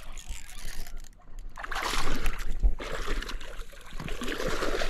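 Hooked bass splashing and thrashing at the water's surface while being played in, loudest from about a second and a half in.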